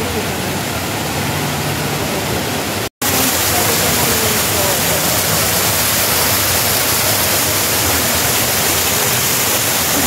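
Steady rush of falling water: the Rain Vortex indoor waterfall with faint crowd chatter. After a brief cut-out about three seconds in, a small wall water cascade is heard close up, splashing into its basin, louder.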